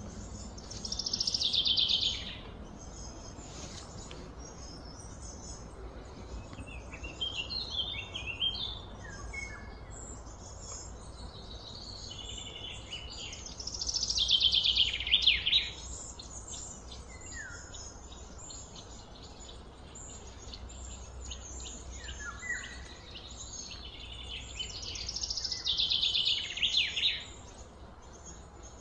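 A songbird singing a fast trill of rapid notes that falls in pitch, three times about twelve seconds apart, with smaller bird chirps between and a low steady hum beneath.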